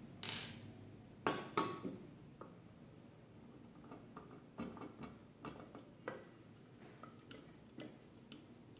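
Small metal screws and the lid of a metal electronics enclosure clinking and tapping as they are handled on a tabletop: a string of light, separate clinks and clicks.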